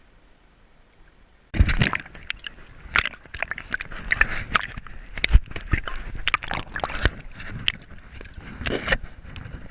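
Water splashing and sloshing with many irregular knocks and clicks, starting abruptly about a second and a half in.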